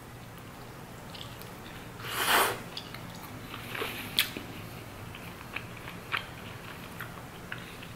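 Close-up eating sounds: a crunchy bite into jackfruit pulled-pork toast about two seconds in, followed by chewing with small sharp mouth clicks.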